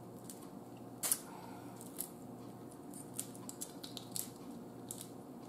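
Shells of boiled shrimp being peeled off by hand, crackling and snapping in a scatter of short sharp clicks, the loudest about a second in. A faint steady hum runs underneath.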